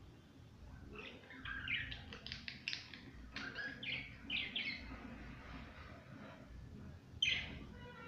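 Pet budgerigars chirping in their cage: a quick run of short chirps and warbles for a few seconds, then one louder call near the end.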